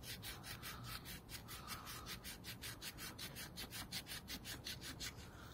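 Emery cloth rubbed quickly back and forth on a motorcycle brake caliper piston, a faint, even scratchy rasp at about six strokes a second, scouring the grime and corrosion off the piston.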